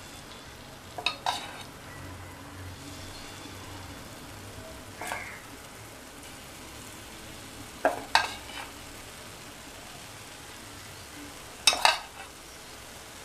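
Oil sizzling steadily in the wells of a hot kuzhi paniyaram pan as rava batter is ladled in, with a metal ladle clinking sharply four times.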